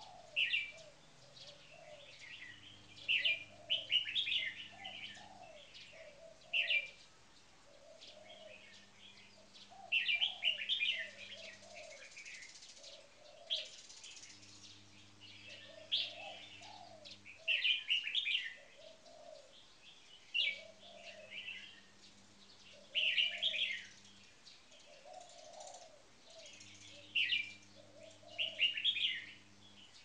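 Red-whiskered bulbuls singing short, quick, bright phrases over and over, one burst every two to three seconds. Softer, lower notes run underneath.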